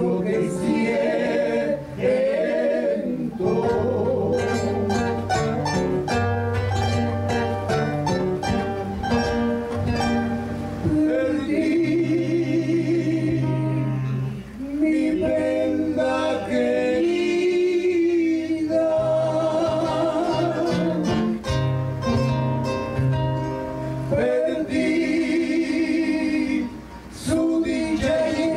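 Two acoustic guitars strummed while men sing into microphones: a traditional Arequipa carnival song.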